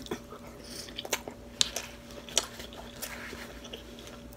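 Close-up mouth sounds of a soft flour-tortilla chicken taco being bitten and chewed: short wet clicks and smacks at irregular intervals. A faint steady hum runs underneath.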